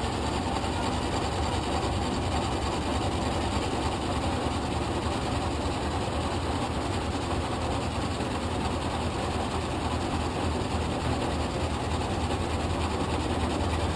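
Metal lathe running steadily as it takes a light facing pass across the side of a rotary-engine rotor, clearancing the rotor face by a thousandth or two: a steady motor hum under an even cutting hiss.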